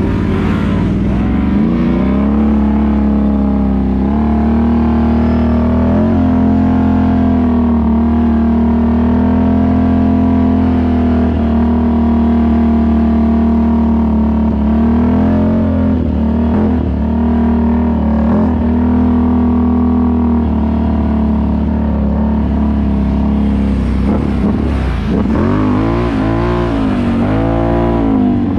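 ATV engine running at a steady throttle while riding, its pitch wobbling slightly with small throttle changes. Near the end it revs up and down several times in quick succession.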